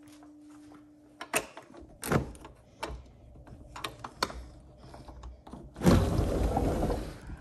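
A glass patio door being opened: a sharp click of the latch, then a loud thunk about two seconds in, followed by a few lighter knocks. Near the end there is a loud rushing noise lasting about a second.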